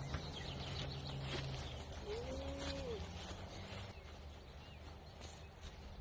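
A single short animal call, under a second long, that rises and then falls in pitch about two seconds in, over faint outdoor background. A low steady hum runs underneath and stops just before the call.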